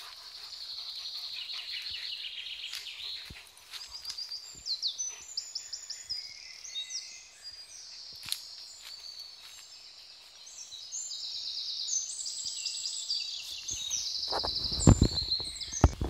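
Several songbirds singing in woodland, overlapping high chirps and fast trills. Near the end, a run of loud, close thumps and rumbling.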